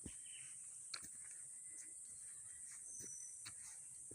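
Steady high-pitched drone of forest insects, with a few faint thumps.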